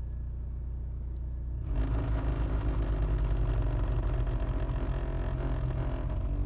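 BMW 3 Series heater blower motor turned up to a higher fan speed a couple of seconds in, setting off a loud, rough, fluttering racket over a steady low hum. The noise is the sign of a faulty blower motor.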